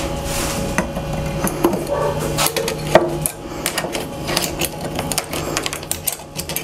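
Irregular clicks, taps and rattles of a new in-tank fuel pump assembly being handled and fitted into the opening of a 1986 BMW K100 motorcycle's fuel tank, with a faint steady hum beneath.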